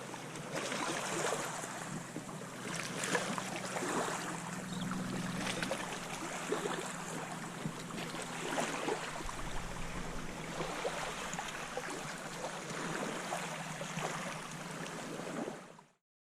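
Water splashing and lapping around a kayak, with irregular paddle splashes over a steady wash of water and wind and a low steady hum underneath. It cuts off suddenly near the end.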